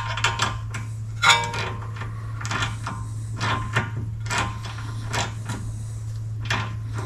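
Metal sockets and hand tools clinking and rattling as they are picked through, with one ringing clink about a second in, over a steady low hum.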